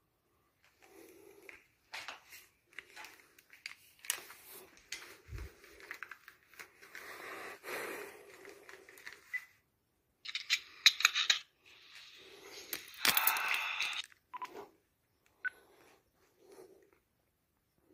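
Footsteps scuffing and crunching on a gritty basement floor, with rustling and handling noise. There are irregular scrapes and clicks throughout, and two louder scraping stretches about ten and thirteen seconds in.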